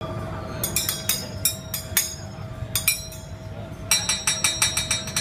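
Metal teppanyaki spatulas striking and clinking against the steel griddle in sharp, separate taps, breaking into a fast rattle of about eight taps a second near the end.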